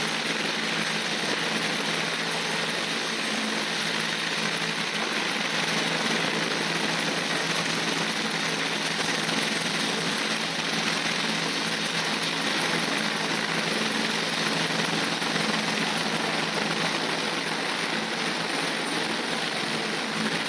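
RAF helicopter running steadily, its engine and rotors making a constant, even noise with a low hum.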